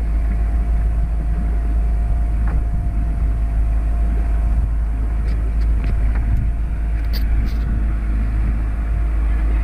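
Small outboard motor running steadily at constant speed, with a heavy deep rumble on the microphone.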